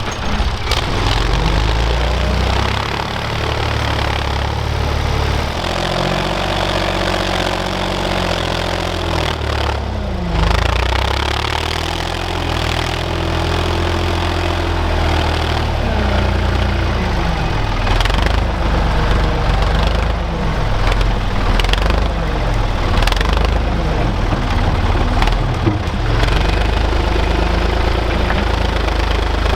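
Engine of a small earthmoving machine running steadily while it works dirt, its pitch rising and falling several times with the load, with a few sharp clanks along the way.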